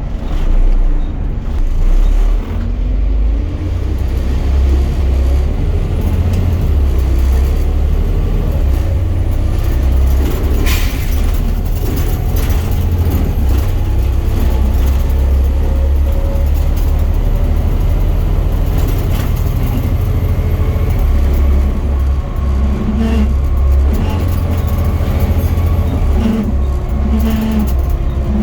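Volvo B7 bus on the move, with a steady low drivetrain rumble and faint whining tones that drift in pitch, the kind of weird axle noise the bus is recorded for. There is one sharp knock partway through.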